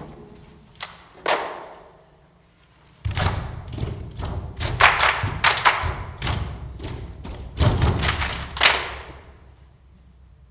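Irregular thumps and slaps echoing in a large hall: a few separate hits in the first two seconds, then a dense, loud run of them from about three to nine seconds in, dying away near the end.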